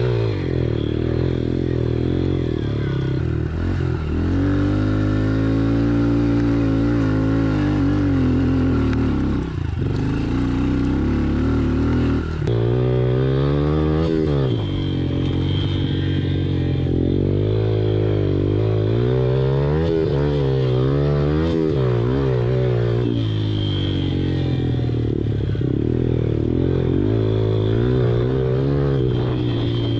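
110cc pit bike engine running under load while riding, its pitch climbing and dropping again and again as the throttle is worked and the gears change.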